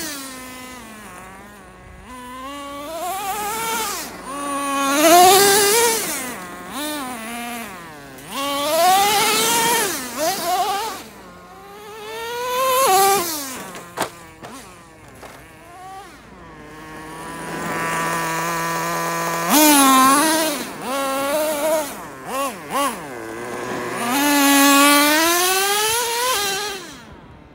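Traxxas T-Maxx's 2.5R nitro engine, a small glow-fuel RC engine, revving up and falling back again and again as the truck accelerates, backs off and passes by, with its pitch rising and sliding down on each surge. Around the middle it holds a steady high-pitched note for a couple of seconds before revving again.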